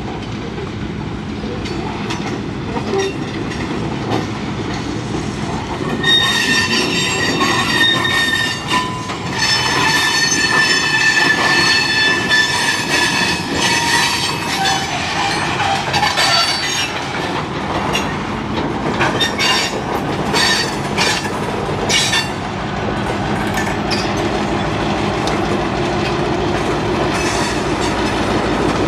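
Freight train of covered hopper cars rolling past, its steel wheels squealing in long high-pitched tones from about six seconds in, then clacking over rail joints. Near the end the single diesel locomotive at the rear passes, its engine running under the rolling noise.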